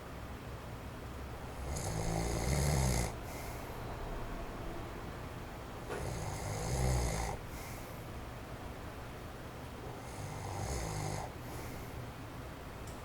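A man in his forties snoring in his sleep: three loud snores about four seconds apart, each a deep rumble with a hiss on top. Beneath them runs the faint, steady wind noise of an electric fan on its low setting. The snorer has sleep apnoea.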